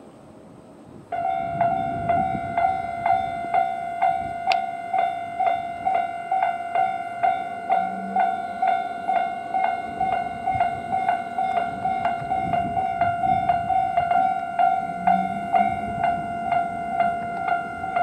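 Japanese railway level-crossing electronic warning bell, of the kind heard on Toyama Chiho Railway crossings, starting suddenly about a second in and ringing steadily at about two strikes a second, each strike a bright ringing tone. It is the crossing alarm warning of an approaching train while the barriers come down.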